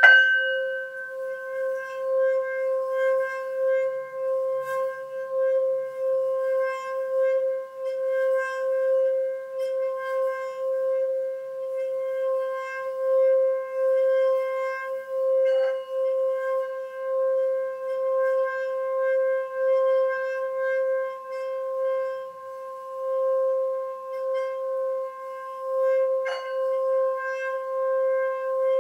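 Metal singing bowl struck with a wooden mallet and then sung by rubbing the mallet around its rim: a steady ringing tone with several higher overtones, its loudness swelling and fading about once a second. The mallet knocks lightly against the bowl about halfway through and again near the end.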